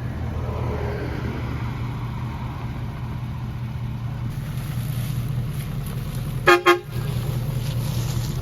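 Ford F-250's 6.7 Powerstroke turbo-diesel V8 idling steadily. About six and a half seconds in comes a quick double toot, about half a second long, of the cheap air-powered train horn that is wired to the truck's steering-wheel horn.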